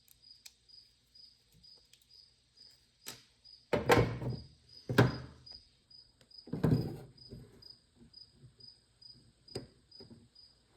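Clunks and clicks of metal hand tools and ratchet parts being handled, with three louder knocks about four, five and seven seconds in. A cricket chirps steadily behind, about three chirps a second.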